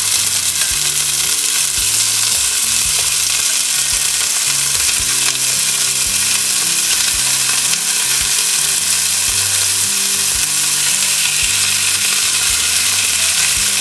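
Cubes of beef brisket searing in hot oil in a pot: a loud, steady sizzle, as more pieces are laid in one at a time.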